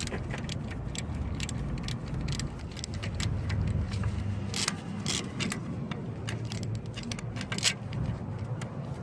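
Metal hand tools clicking and clinking on a car's engine, a string of sharp metallic ticks with a few louder clanks about halfway through and again near the end, over a steady low rumble.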